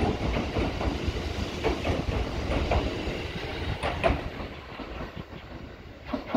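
Kintetsu 22000 series ACE electric express train pulling away and receding. Its wheels clack over the rail joints several times, and the running sound fades as it goes.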